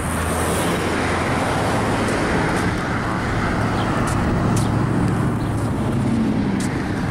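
Steady vehicle and road traffic noise with a low engine hum throughout.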